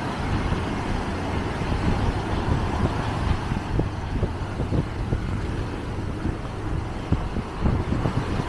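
Sea surf washing in over the shallows, with wind buffeting the microphone in irregular low gusts.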